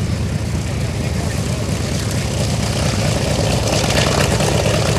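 Douglas AD-5W Skyraider's Wright R-3350 radial engine running at taxi power, propeller turning: a steady low rumble that grows a little louder near the end.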